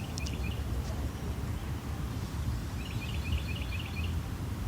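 A small bird chirping in two quick runs of short, high notes, over a steady low rumble.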